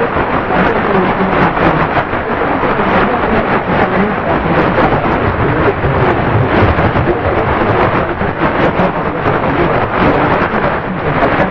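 Dense shortwave static, a steady hiss with crackling, from a Tecsun PL-680 receiver tuned to 17715 kHz in the 16-metre band, with the Radio Exterior de España broadcast buried in the noise.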